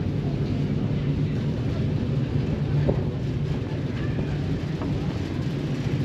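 Steady low drone of a car ferry under way, its engines and hull running at a constant pitch, with wind noise on the open deck.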